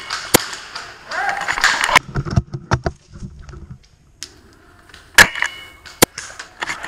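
Airsoft gunfire: single sharp snaps, one near the start and two more about five and six seconds in, then a quick run of snaps at the very end.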